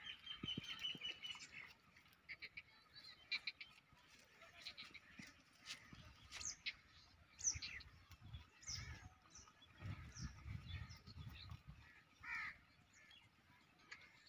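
Faint birdsong: many short high chirps, several sweeping downward, with a steady high trill in the first second or so. A low rumble comes in for about two seconds near the middle.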